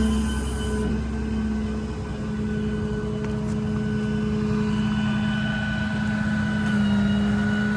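Cummins diesel engine of a Ram 5500 service truck running, with a steady hydraulic whine from the IMT crane's hydraulic system as the crane is operated; the pitch shifts slightly near the end as the load changes.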